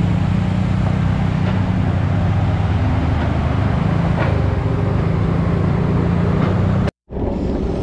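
Steady low rumble of wind buffeting and road noise on a camera riding along on a road bicycle. It cuts out for an instant near the end, then resumes.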